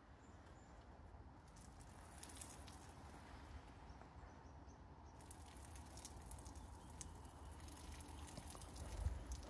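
Faint rustling and crackling over a low rumble, with a soft thump near the end.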